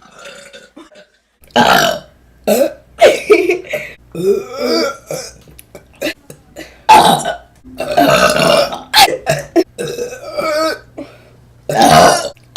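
Women burping: a run of loud burps one after another, some short and some long and drawn out.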